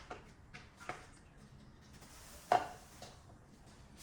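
A few light clicks and knocks from handling the pressure washer's accessories, the loudest about two and a half seconds in; the washer's motor is not running.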